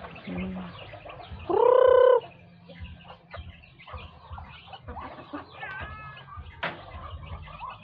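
Backyard chickens clucking, with one loud drawn-out call about one and a half seconds in and a shorter call near six seconds.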